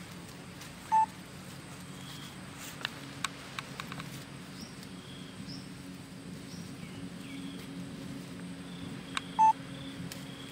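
Two short, loud electronic beeps about eight seconds apart, over a steady low hum, with a few faint clicks and faint high chirps.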